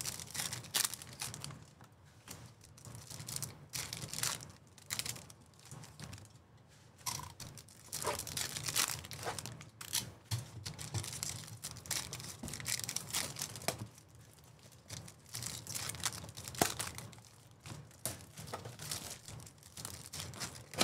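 Packaging of 2024 Topps Chrome Baseball blaster boxes and packs being torn open and crinkled by hand, in irregular spells of crackling and ripping with short pauses between.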